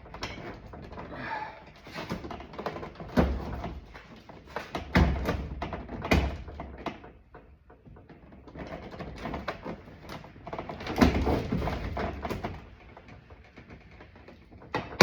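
An interior door panel being worked loose and lifted off a door: several hard plastic knocks and thumps, with rattling and scraping between them.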